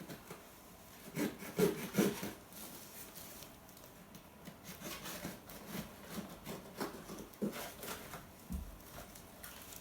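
A cardboard parcel being opened and its packaging handled: irregular scraping, rubbing and rustling, with a few louder strokes about one to two seconds in.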